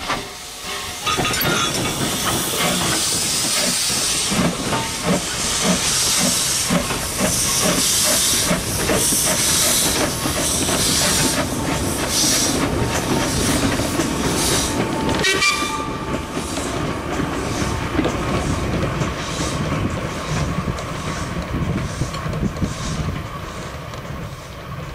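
LB&SCR A1X 'Terrier' tank locomotive No. W8 hauling a short goods train past under steam: hissing steam and rhythmic exhaust beats, then the loose wagons and brake van rolling by with regular clicks of wheels over rail joints.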